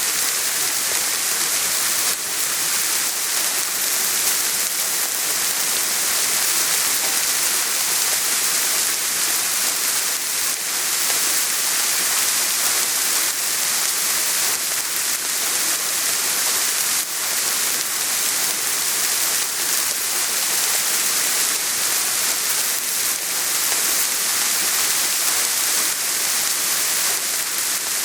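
Steady soft rain falling, a continuous even hiss with fine pattering of drops.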